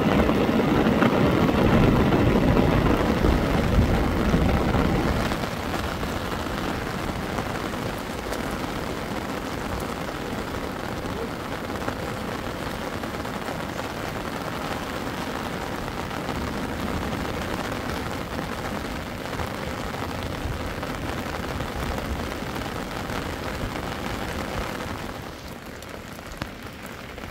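Steady rain falling. For about the first five seconds it is overlaid by a louder, low rushing rumble from muddy floodwater pouring down a gully.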